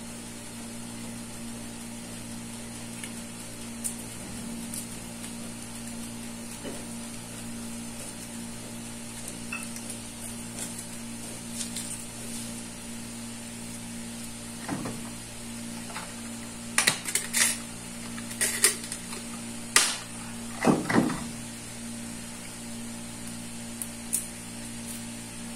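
A steady low hum with a faint frying sizzle. Between about 15 and 21 seconds in comes a cluster of sharp clinks and knocks of kitchenware being handled.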